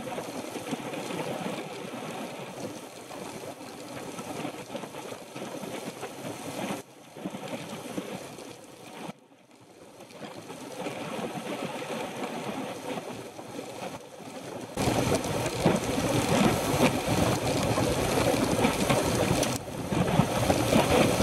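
Wind rushing over the microphone of a bike-mounted camera while riding a road bike at speed in a group. It dips nearly quiet for a moment about nine seconds in, then turns much louder with deep buffeting about fifteen seconds in.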